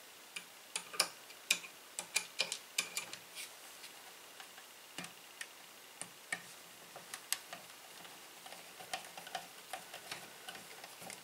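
Screwdriver threading M3 screws through the acrylic frame into the metal power supply case: irregular small clicks and taps, thickest in the first few seconds and coming again in scattered bunches.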